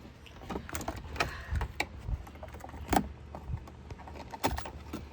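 Handling noise from work on a wall light switch: a string of irregular light clicks and taps over a low rumble.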